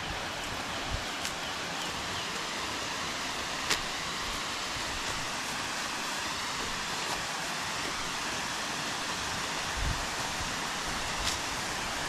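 Steady rushing hiss of a waterfall, broken by a few sharp clicks and a couple of low knocks.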